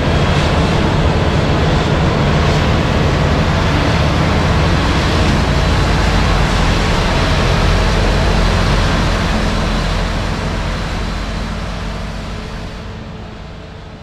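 Claas 990 self-propelled forage harvester running steadily under load as it chops corn and blows silage into a truck, a deep engine drone under a broad rushing noise. The sound fades out over the last few seconds.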